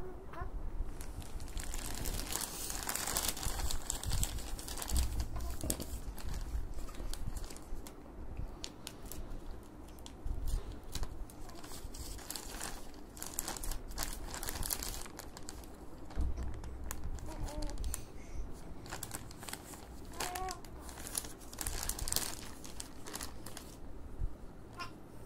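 Plastic wrapper of a diaper-pants pack crinkling and crackling irregularly as it is handled and turned over, with now and then a low bump.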